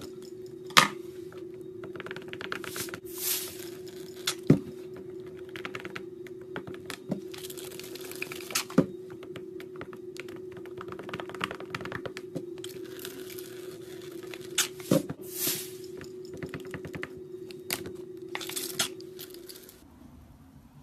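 A thick, sticky slime mixture that won't come together being stirred in a bowl with a stick: wet crackling and scraping with irregular sharp clicks of the stick against the bowl, over a steady low hum that stops near the end.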